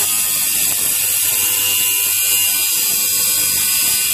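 Milwaukee angle grinder with a thin cut-off disc cutting through a square steel tube, a steady, loud, high-pitched grinding hiss of the wheel biting into the metal.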